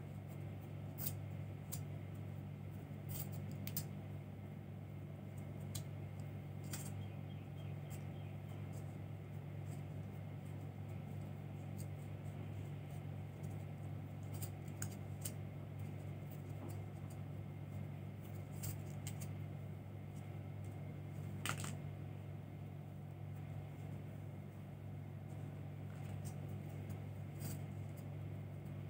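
Faint occasional clicks and rustles of red thread being wound around a clear plastic ring, over a steady low hum; one sharper click comes about three-quarters of the way through.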